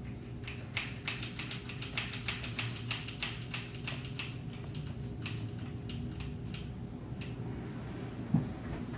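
A quick run of light, sharp clicking taps, about four to five a second, thinning out to a few scattered clicks and one louder knock near the end, over a steady low hum.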